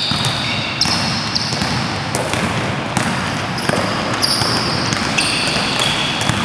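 Basketball play on an indoor court: short high sneaker squeaks on the floor again and again, with scattered sharp thuds of the ball bouncing and feet landing, over steady noise.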